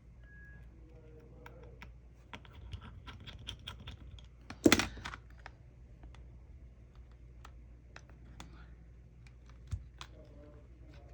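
Irregular light taps and clicks of fingers on a phone's touchscreen and body while the newly replaced screen's touch is tested. One louder knock comes about halfway through.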